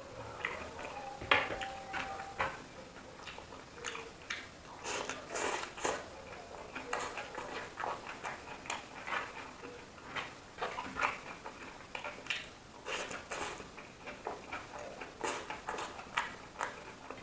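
Close-up eating sounds: chewing and lip-smacking, a string of irregular wet clicks that come in small clusters.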